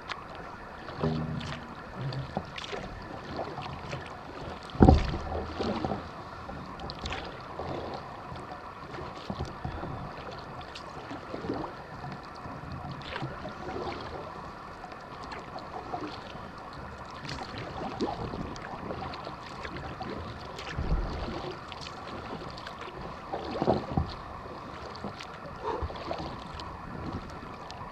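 Kayak paddle strokes in calm water: repeated light splashes and drips at an uneven pace, with a louder thump about five seconds in and two more later on.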